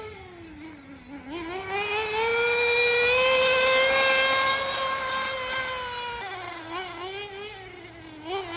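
Tamiya Nitrage 1/8 truggy's FR-32FX 5.2 cc nitro engine running as the car is driven. Its buzzing note drops low about a second in, then rises and holds high and loud for a few seconds before sagging and dipping again near the end.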